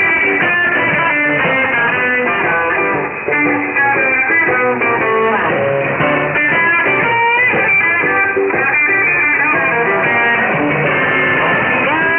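Guitar-driven music heard through a shortwave AM radio receiver: thin-sounding, with no high treble.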